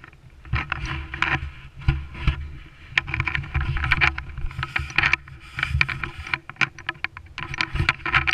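Wind buffeting the camera's microphone in an uneven low rumble, with frequent rustles and knocks from the camera being carried and swung on a selfie stick.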